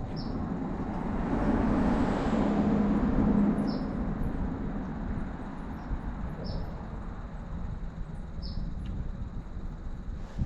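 A vehicle crossing the bridge overhead: a rumble with a low hum that swells over the first few seconds and then fades away. Short high squeaks recur every two to three seconds throughout.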